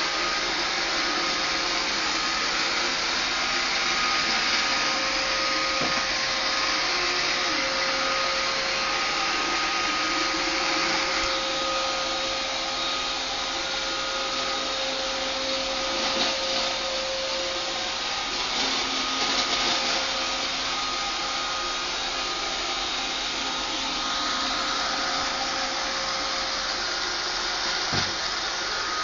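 iRobot Roomba 560 robot vacuum running, a steady whir with a constant hum, and a few light knocks, the sharpest near the end.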